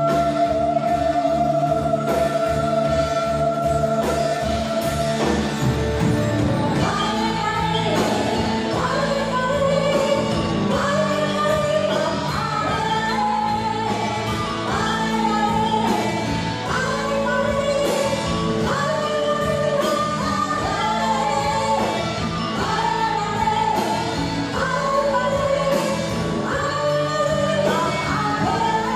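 Modern gamelan fusion band playing live: women singing a Javanese folk song over electric guitars, drum kit and gamelan instruments. A long held sung note opens, then from about six seconds in short sung phrases repeat over a steady beat.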